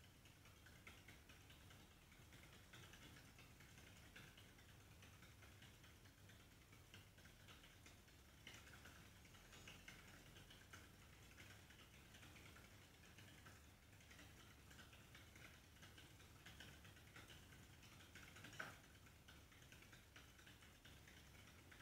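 Faint, quick, irregular ticking and pattering of a hamster's feet running in a plastic exercise wheel, with one sharper click late on.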